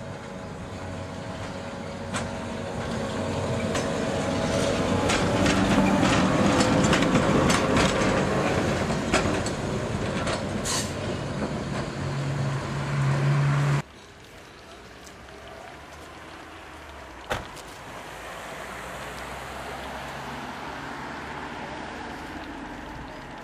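Electric narrow-gauge railcar of the Bex–Villars–Bretaye railway approaching and passing on street track: motor and wheel noise builds to a peak about six to ten seconds in, with many clicks from the rails and a brief high wheel squeal. The sound cuts off abruptly about fourteen seconds in, leaving a quieter steady background with one sharp click.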